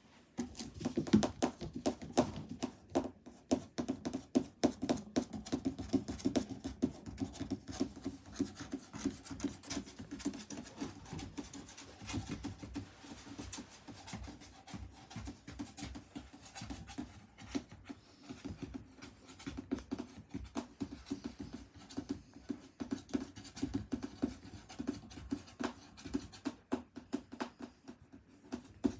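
Close, irregular rustling and crinkling of clear plastic wrapping, with rubbing and scratching, starting suddenly and going on in uneven bursts.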